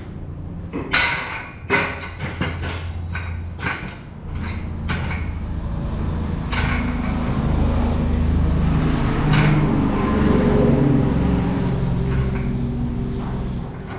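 Metal clanks and knocks of tools and parts being handled, then a steady rumble with a wavering low hum lasting about nine seconds.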